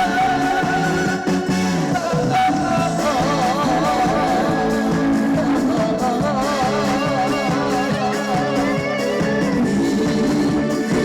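Instrumental break of a trot song over the stage speakers: a lead melody with heavy vibrato over a steady bass line and beat.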